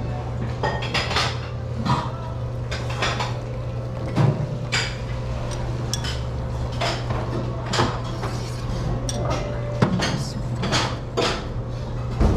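Dishes and metal utensils clinking and knocking: scattered sharp clinks of ceramic bowls, trays and spoons, about one every second, over a steady low hum.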